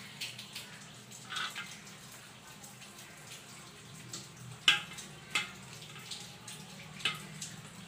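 Banana leaf crinkling and rustling as hands fold it into a parcel: a few short crackles, with one sharper crack about halfway, over a steady low hum.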